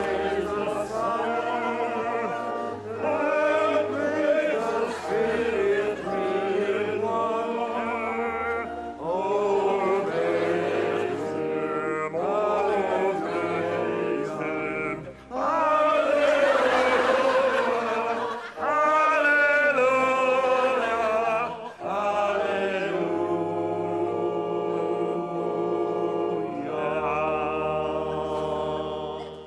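Church congregation singing a hymn together, in long held notes with short breaks between lines.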